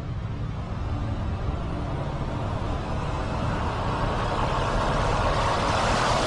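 A vehicle's engine rumble under a rushing noise that grows steadily louder, then cuts off abruptly at the end.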